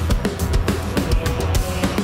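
Live band music driven by a Ludwig drum kit played hard, with bass drum and cymbals, over electric guitar and bass, in a rock arrangement of a Christmas hymn.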